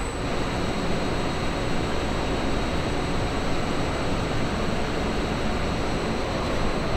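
Steady, even machinery noise filling a large locomotive diesel shop, with no distinct knocks, horns or voices.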